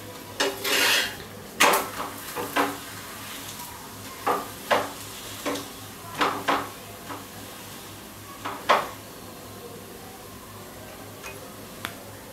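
Steel spatula scraping and tapping on an iron tawa as a thalipeeth is pressed and moved while it shallow-fries: about a dozen short scrapes in the first nine seconds, then one faint click near the end. Underneath is a low steady hum.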